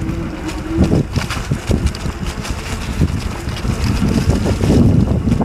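Wind buffeting the microphone on a moving electric bike, with irregular knocks and rattles as the bike bounces over rough grass.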